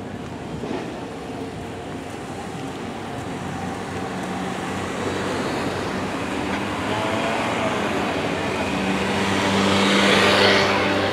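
Cars and a motor scooter driving past on the street, their engine and tyre noise growing louder to a peak near the end as they pass close by.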